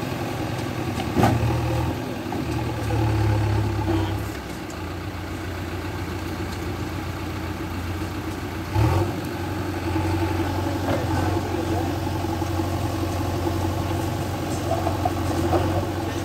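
JCB backhoe loader's diesel engine running steadily while its hydraulic backhoe arm works, the engine rising briefly under load about a second in and again around three to four seconds. Sharp knocks come about a second in and near nine seconds, after which the engine runs a little louder.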